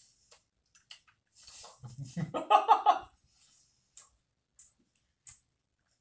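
A man laughing briefly about two seconds in, with faint clicks of cutlery on plates around it.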